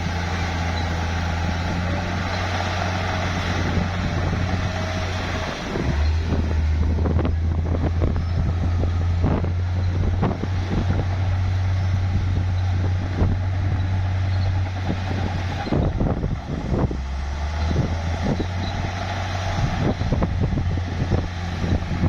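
Bulldozer's diesel engine running under load with a steady low drone, its pitch dropping about five seconds in and again near sixteen seconds, with many irregular knocks and clanks from about six seconds on.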